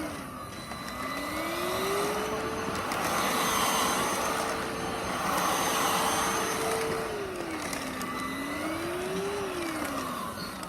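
Handheld vacuum cleaner running: its motor whine rises as it spins up, holds steady for several seconds with a rush of air, then winds down, briefly spins up again and winds down near the end as it is switched off and on.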